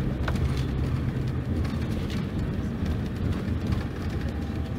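Diesel engine of a Mercedes-Benz OC-500RF-1842 coach running with a steady low drone.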